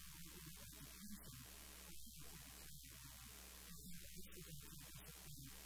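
Faint, steady electrical hum and hiss, with a woman's muffled, barely audible talking underneath.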